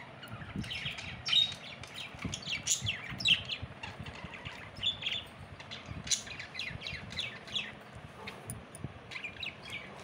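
Pet budgerigars chirping and chattering: a busy run of short, quick high chirps.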